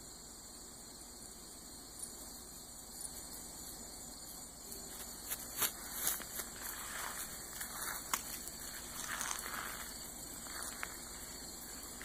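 Faint steady chorus of insects chirping. Scattered light rustles and clicks come in from about five seconds in.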